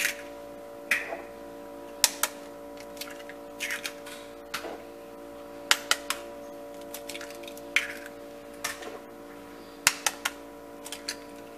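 Eggs being cracked open over a ceramic bowl: sharp taps and shell cracks, often in quick pairs, every second or so, over a steady hum.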